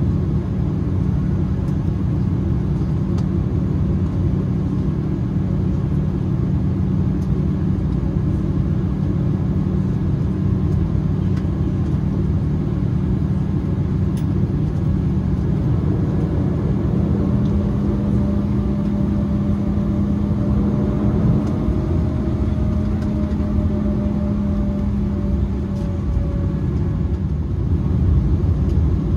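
Cabin noise of an Embraer E190 taxiing, its General Electric CF34-10E turbofans at low thrust giving a steady rumbling drone with a constant hum. A higher steady tone joins a little past halfway and fades out near the end, where the noise swells slightly.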